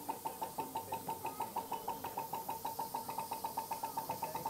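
Steady rhythmic knocking from a standing USATC S160 steam locomotive in steam, heard inside its cab: about six even beats a second, each with a ringing tone.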